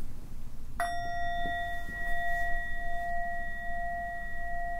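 A meditation bell struck once about a second in, then ringing on steadily with a slight wavering in its tone.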